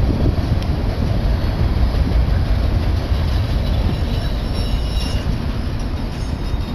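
Union Pacific double-stack container train passing at speed: a steady rumble of steel wheels on the rails, with faint high squeals about four to five seconds in.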